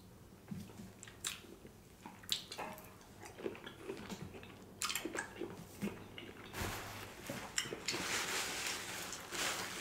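Close-miked chewing and wet mouth clicks from a man eating a mouthful of seafood. From about six and a half seconds in, a paper towel rustles as he wipes his hands and mouth.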